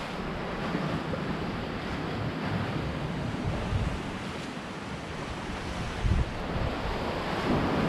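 Sea waves washing on the shore, with wind buffeting the microphone in uneven low rumbles and one sharper buffet about six seconds in.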